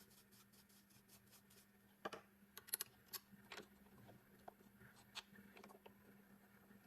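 Faint scattered clicks and taps, about a dozen over a few seconds, from handling a key cutting machine as the key is set up to cut its other side, over a faint steady hum.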